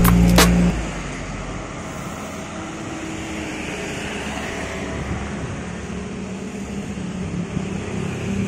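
Street ambience with road traffic: a steady wash of vehicle noise, after background music cuts off about a second in.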